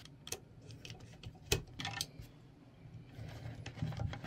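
Small precision screwdriver turning screws into the PCB holder's metal base: scattered sharp metallic clicks and light scrapes, the loudest about a second and a half in.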